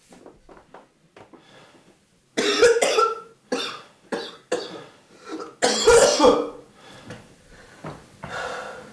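A man coughing in a string of loud coughs after drawing in smoke he is no longer used to. The coughs start a couple of seconds in, the loudest fit comes about six seconds in, and a last one falls near the end.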